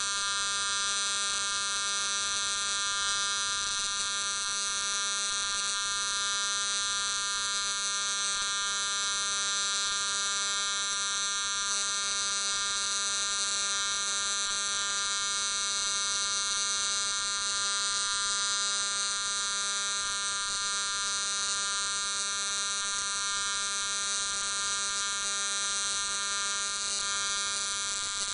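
TIG welding arc burning on aluminum plate, a steady electric buzz with a bright hiss over it, running without a break.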